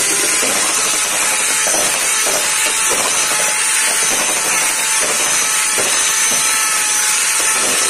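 Electric hand mixer running at a steady speed, its twin beaters whisking thick cake batter in a metal bowl.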